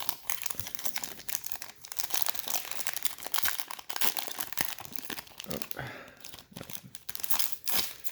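Plastic wrappers of trading-card packs crinkling and tearing as the packs are ripped open and handled: a dense run of crackles.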